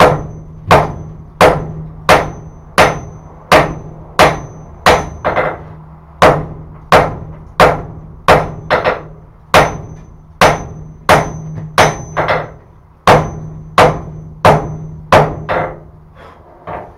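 Hand hammer striking a red-hot billet on a steel anvil to forge-weld scrap rasp steel and wrought iron. The blows come at an even pace of about one and a half a second, each with a short high-pitched anvil ring. The hammering pauses briefly twice and ends in a few lighter taps, over a steady low hum.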